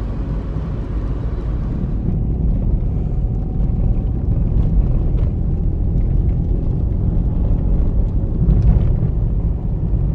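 Car driving on a snow-covered road, heard from inside the cabin: a steady low rumble of engine and tyre noise, with a few faint clicks now and then.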